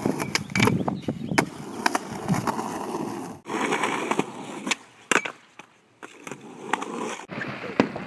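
Skateboard wheels rolling over rough concrete, with several sharp clacks of the board hitting the ground.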